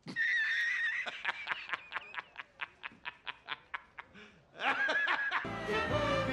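A man's high-pitched cackling laugh: a held squeal, then a rapid run of short 'ha's, about six a second, that fade away, and one last breathy burst. Music starts near the end.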